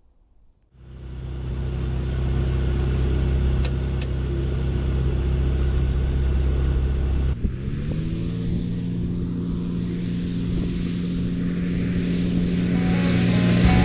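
Rans S6 Coyote light aircraft's engine and propeller running, coming in suddenly about a second in and holding a steady low speed. About seven seconds in the engine revs up to a higher steady speed, with a growing rush of air near the end.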